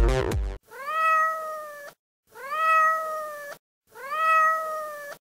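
Three long, drawn-out cat meows, each rising at the start, holding steady and breaking off abruptly, all three alike in shape. Dance music cuts off just before the first one.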